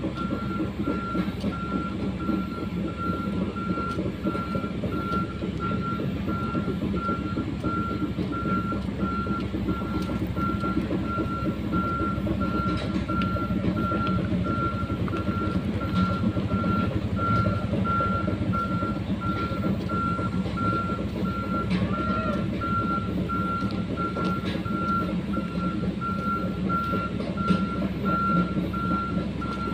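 JCB backhoe loader's diesel engine running steadily while its reversing alarm beeps in a regular on-off rhythm.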